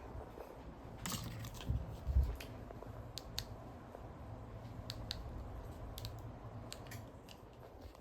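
A ceiling fan running with a steady low hum, with irregular light clicks and ticks over it.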